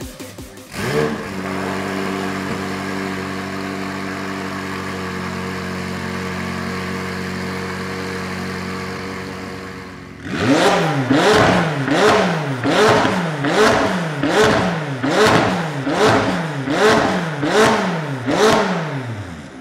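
McLaren 540C's twin-turbo V8 through catless downpipes and a valved performance exhaust, catching about a second in with a quick flare and then idling steadily. From about ten seconds in it is blipped again and again, about ten short revs at roughly one a second, each rising and falling in pitch.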